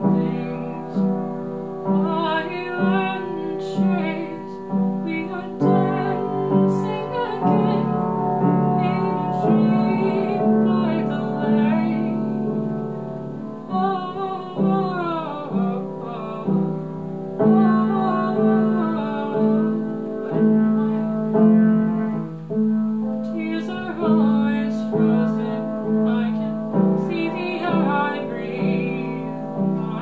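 Upright piano played in slow chords struck about once a second, with a woman's voice singing a melody over it.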